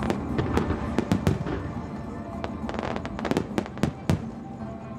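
Aerial fireworks going off: many sharp bangs and reports in quick succession, with music playing underneath.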